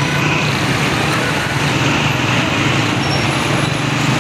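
Motorcycle engine running steadily while riding at speed through city traffic, with the steady rush of road noise from surrounding vehicles.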